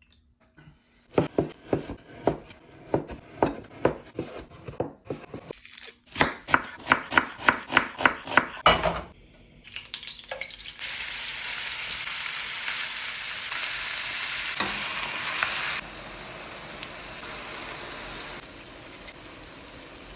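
Rhythmic chopping strokes on a cutting board, about three a second, in two runs. Then pork frying in a pan, sizzling steadily, quieter near the end.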